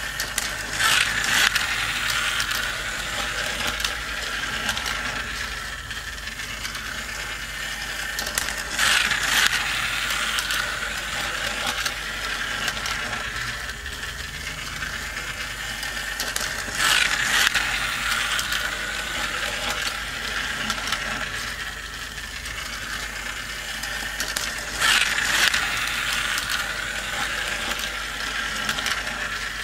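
Motorized plastic toy race track running: a steady whirring, ratcheting clatter of its gear drive, with a louder rattling burst about every eight seconds as the small toy cars come round the loop.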